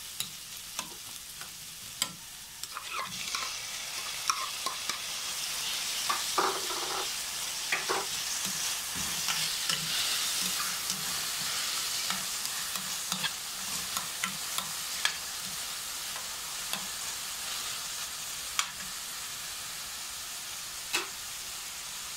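Onion, garlic and ginger sizzling in oil in a stainless steel frying pan while a metal spatula stirs, scraping and clicking against the pan every few seconds. The sizzle grows louder a few seconds in as chopped tomatoes are added.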